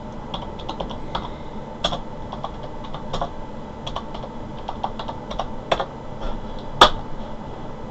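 Typing on a computer keyboard: quick, irregular key clicks, with one louder click near the end.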